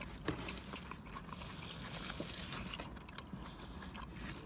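A person chewing a mouthful of pan pizza, with many small mouth clicks and smacks.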